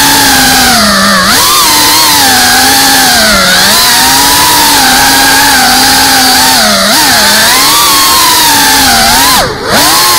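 FPV racing quadcopter's brushless motors and propellers whining loudly, heard from the drone's own camera, the pitch rising and falling with throttle as it weaves between trees. About nine and a half seconds in the whine drops sharply as the throttle is cut for a moment, then picks straight back up.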